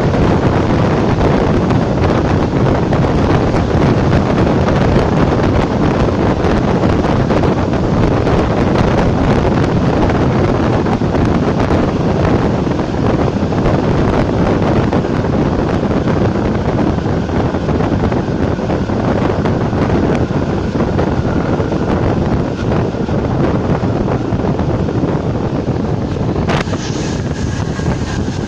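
ČD class 460 electric multiple unit running at speed, a steady rushing noise with wind buffeting the microphone. A faint whine creeps in late on, and there is one sharp click near the end.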